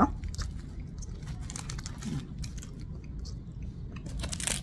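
Crisp-crusted Vietnamese bánh mì roll crackling in many small sharp crunches as it is chewed and handled, with a louder crackle near the end.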